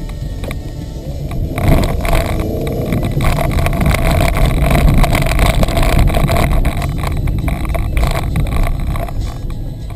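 Car driving, engine and road rumble heard from inside the cabin. It swells louder about a second and a half in and eases near the end.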